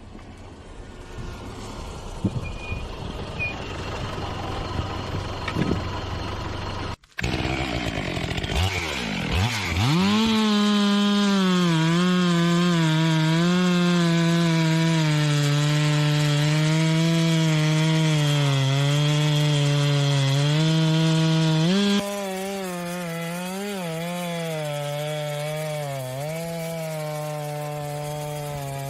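Two-stroke chainsaw running at full throttle while cutting through a tree, its pitch dipping and recovering again and again as the chain bogs under load. The sound cuts abruptly about 7 s in and changes in level at about 22 s where one felling clip gives way to another.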